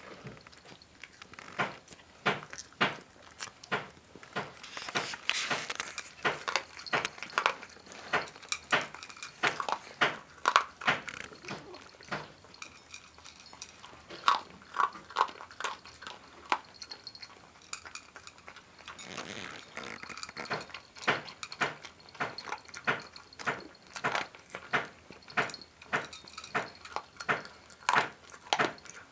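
Miniature dachshund eating from its bowl: quick repeated crunches and chewing, with the bowl clinking now and then, broken by a couple of short pauses.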